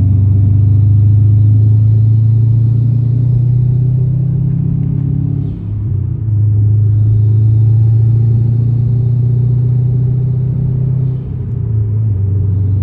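Subaru WRX STI's engine and exhaust droning steadily inside the cabin while cruising at highway speed, with two brief dips in the drone.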